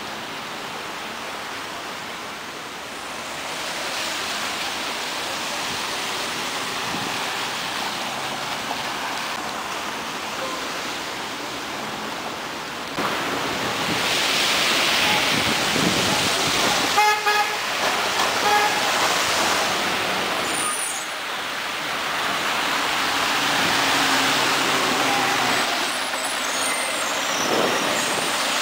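Road traffic on a wet street: rising and falling swells of tyre hiss as vehicles pass, with a horn sounding in rapid short pulses a little past the middle. Near the end the Scania CN113ALB articulated city bus pulls in to the stop, its brakes squealing thinly.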